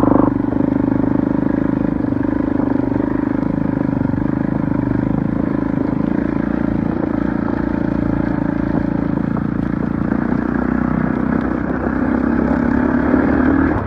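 2019 Kawasaki KX450 dirt bike's single-cylinder four-stroke engine running at a steady throttle while being ridden.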